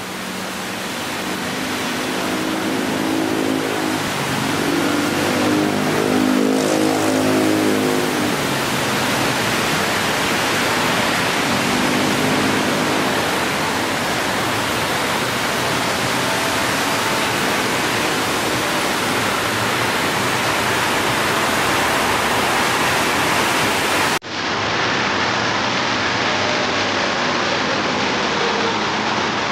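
Road traffic ambience: a steady wash of passing vehicle noise that swells up over the first few seconds. A heavy vehicle's engine hum rises and falls as it passes, around 2 to 8 seconds in and again around 12 seconds. The sound drops out for an instant about 24 seconds in, then the traffic noise carries on.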